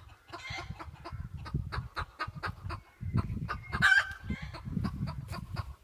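Chickens clucking in a quick run of short calls, with a louder squawk about four seconds in, over a low rumble.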